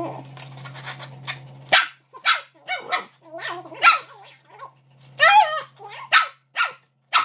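Dog vocalising in a string of about ten short, pitched barks and yips, starting about two seconds in, with one longer wavering call a little past five seconds.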